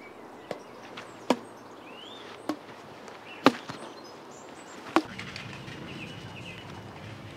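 Racket strikes in a rally: five sharp hits about one to one and a half seconds apart, some loud and some fainter, over a quiet outdoor background with a few bird chirps.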